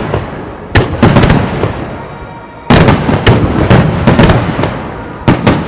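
Starmine fireworks barrage: rapid volleys of shell bursts and crackling. A fresh volley breaks out suddenly about a second in, another near three seconds, and one more just before the end, each fading out between them.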